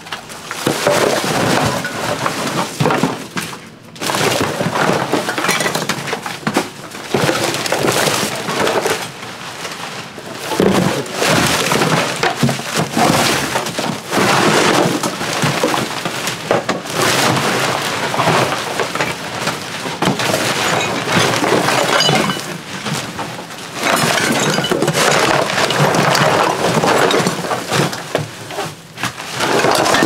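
A flat shovel scraping along a hard floor and scooping mixed rubbish, which clatters, crinkles and clinks as it is shovelled up and tipped into a bin, with a few brief pauses.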